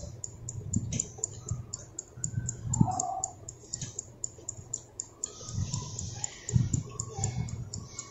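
Fast, even clock-style ticking, about four ticks a second, the sound of the on-screen countdown timer, over soft eating sounds of chewing and pav bread rolls being torn by hand.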